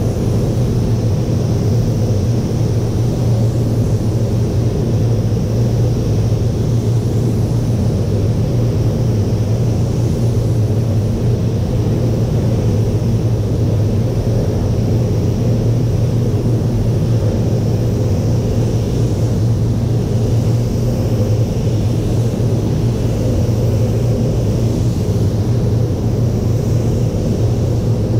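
Steady, loud low drone of a paint spray booth's air-handling fans running.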